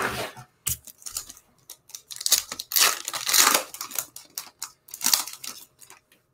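Foil wrapper of a Mosaic basketball card pack crinkling and tearing as it is picked up and ripped open by hand. It comes in irregular crackling rustles, loudest in the middle and again about five seconds in.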